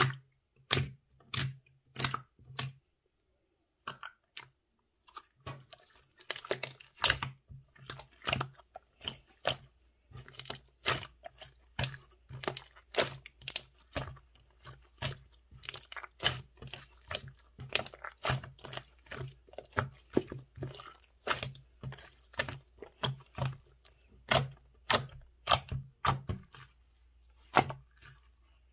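Soft-serve ('soft ice cream') slime being squished and pressed by hand, giving a string of sharp, sticky pops and crackles, about one or two a second. There is a short pause about three seconds in.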